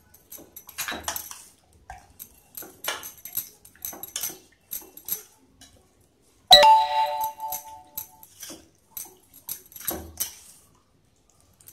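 Hands kneading yogurt-marinated mutton pieces in a steel pot: a run of short, irregular squelches and clicks. About six and a half seconds in, one sharp metallic clang rings on for under two seconds.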